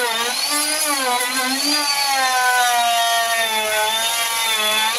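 Electric hand planer running as it is pushed along a wooden frame member, a steady motor whine whose pitch sags and recovers with the load of the cut.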